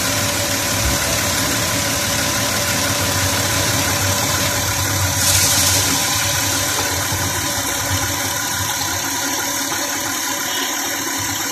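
Audi car engine idling steadily after a PCV modification, with a brief hiss about five seconds in as the oil filler cap is lifted off. The cap comes off freely, the sign that the crankcase is no longer under the excessive vacuum that made the cap suck down.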